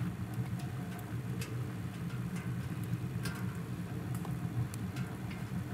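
Split firewood burning in a G-Stove Heat View wood stove, crackling with scattered irregular pops over a steady low rumble.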